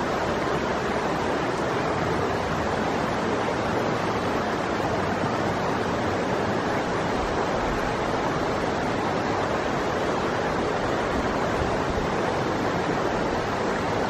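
A river rushing steadily, an even, unbroken noise of flowing water.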